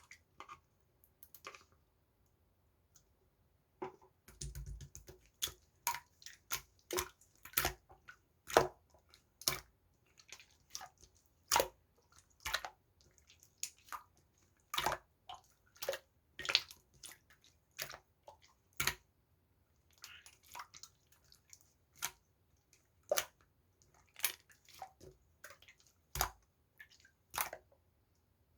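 Clear pearl slime being worked by hand, giving sharp wet clicks and pops, about one or two a second after a quieter first few seconds.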